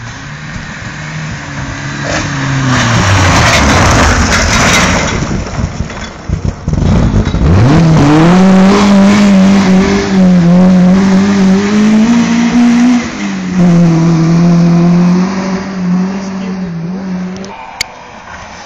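Rally cars at full throttle: one passes with a falling engine note and a loud rush, then another engine is held at high, fairly steady revs for about ten seconds, with small rises and dips, before it cuts off near the end.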